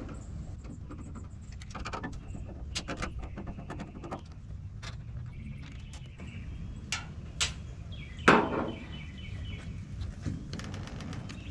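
Scattered clicks and taps of a Phillips screwdriver backing out the side screws of a Chevy pickup's taillight assembly, with one louder knock about eight seconds in.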